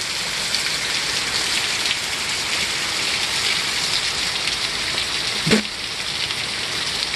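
Heavy rain falling steadily, a dense even hiss. One brief sharp sound stands out about five and a half seconds in.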